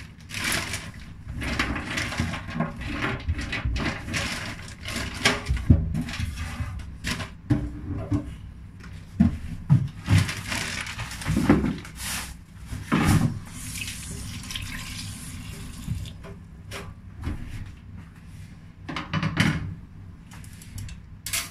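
Water running and splashing in a stainless steel kitchen sink, with irregular knocks and clatter.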